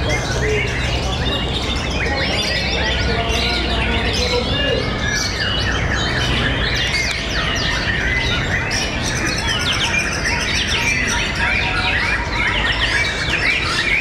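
Many white-rumped shamas singing at once from contest cages: a dense, overlapping chorus of fast whistles, slides and trills that never pauses, the competing males' song during a judged contest round.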